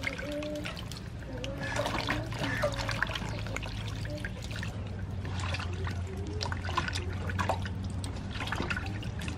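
Water splashing and trickling in a metal basin as hollowed bitter gourd pieces are rinsed and handled by hand, over a steady low hum.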